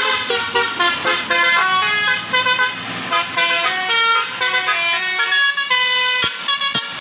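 A bus's Basuri telolet musical air horn playing a quick tune of short, stepping notes. A few sharp clicks come near the end.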